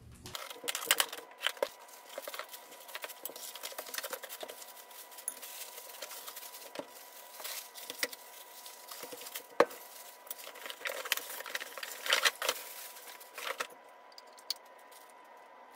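Unpacking and handling a flat-packed electric standing desk: cardboard, tape and plastic packaging rustling and tearing, with irregular sharp clicks and knocks of steel frame parts being handled, the loudest knock about halfway through. It quietens near the end.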